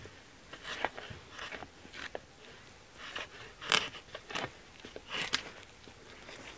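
Knife shaving small chips off a dry spruce shovel handle: several short, irregularly spaced cutting strokes, the loudest a little under four seconds in.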